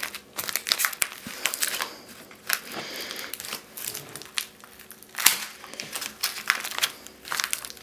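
Organza and stabilizer crinkling as hands smooth and tug them around a plastic embroidery hoop, in irregular crackles with a sharper one about five seconds in.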